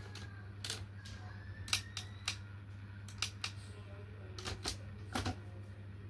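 Typewriter keys striking in slow, irregular clacks, about a dozen of them, over a steady low hum.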